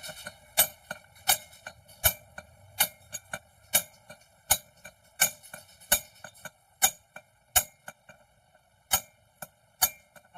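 Hammer striking metal in steady, regular blows, about one every three-quarters of a second, with lighter taps in between.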